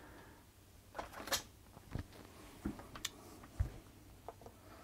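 About half a dozen light, scattered clicks and taps of hand-tool handling, as a screwdriver is picked up and set against the needle clamp screw of a vintage sewing machine.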